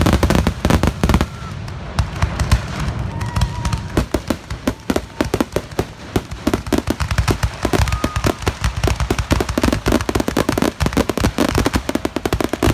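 Fireworks going off in rapid succession: a dense barrage of sharp bangs and crackling pops, many a second, with heavier booms in the first second or so.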